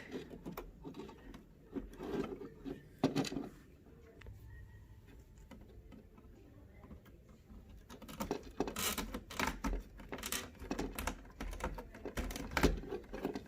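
Hands twisting a plastic twist-on wire connector over stripped household wires and handling the stiff wires in the wall box: scattered clicks and rustles, a quieter spell in the middle, then a dense run of sharp plastic-and-wire clicks near the end.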